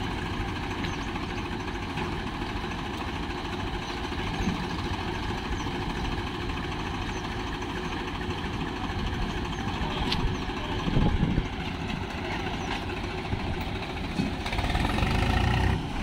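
Swaraj 735 tractor's three-cylinder diesel engine running steadily under load as it strains to pull a loaded trolley stuck in wet sand. The engine gets louder near the end.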